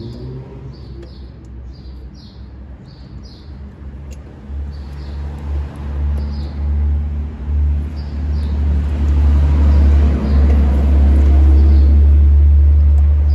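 Small birds chirping in quick short calls for the first few seconds. Then a loud, uneven low rumble takes over: a phone microphone being rubbed and covered by skin as the hand works close to it.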